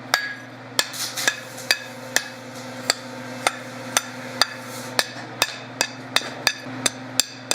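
Hand hammer blows on hot steel at the anvil, about two a second and quickening slightly near the end, each with a short metallic ring, as a small forged bar is rolled into a scroll. A steady low hum runs underneath.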